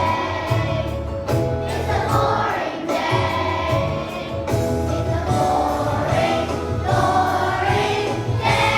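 A children's choir of second graders singing a song in unison over an instrumental accompaniment with a steady bass line.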